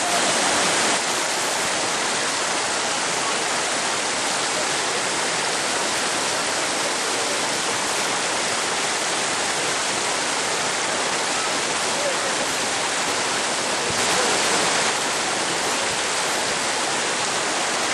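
Whitewater river rapids rushing, a steady, even sound of tumbling water. It swells slightly for about a second near the start and again about 14 seconds in.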